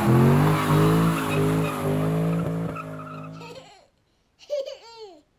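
Ford Mustang engine held at high revs during a burnout, with tyre squeal, fading out after about three and a half seconds. A baby laughs briefly near the end.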